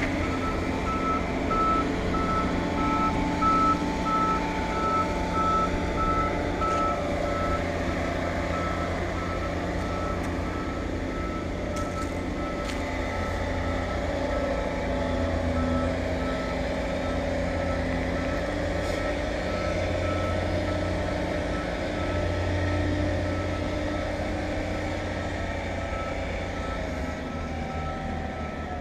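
Diesel engine of a tracked earth-moving machine running steadily, with its reversing alarm beeping at an even pace.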